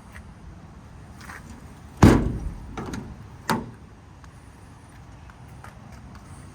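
A metal compartment door on a truck service body slamming shut about two seconds in, with the sound dying away over about a second. A second, lighter clunk follows about a second and a half later.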